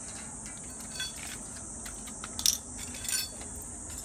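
Light metal clinks and taps as steel chain-link fence fittings are handled against a galvanized steel pipe rail, a few separate strikes with the loudest about two and a half seconds in.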